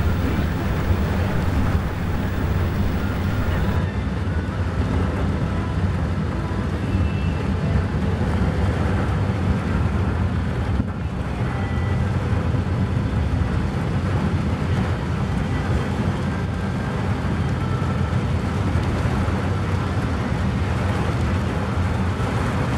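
Steady low rumble of a moving car heard from inside the cabin, with engine and road noise on a rain-wet road.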